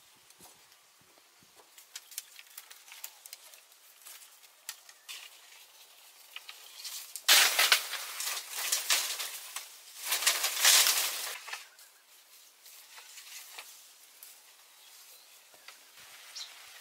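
Rustling with small clicks and snaps, swelling into two loud bursts of rustling a little before halfway and about two thirds in.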